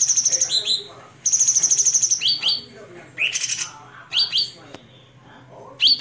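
Caged cucak cungkok songbird singing: two fast, high trills in the first two seconds, then short upward-sliding whistled notes about once a second. A faint steady low hum sits underneath.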